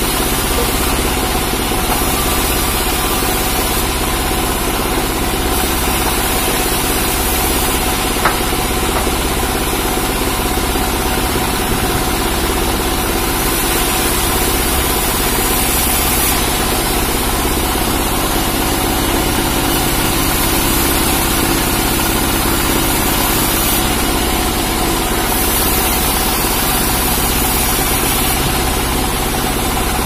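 Engine running steadily at a constant speed, unchanging throughout.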